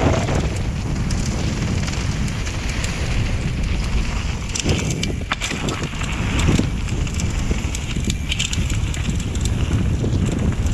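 Mountain bike descending a dirt and gravel trail: wind buffeting the microphone and tyres crunching over loose dirt, with scattered clicks and rattles from the bike over bumps.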